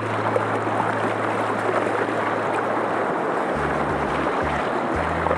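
River rapids rushing around a canoe: a steady, loud hiss of whitewater, with a low hum underneath that shifts pitch about halfway through.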